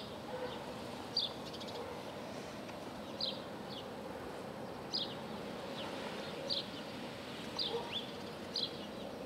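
A small bird chirping outdoors: short, high chirps about every second, some in quick pairs, over a faint steady background noise.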